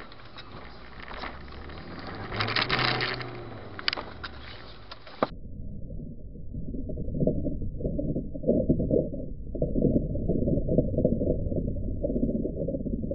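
Car cabin noise from a dashcam driving on a wet road, with a louder swell and a few sharp knocks in the first seconds. After about five seconds the sound turns suddenly muffled and rumbling.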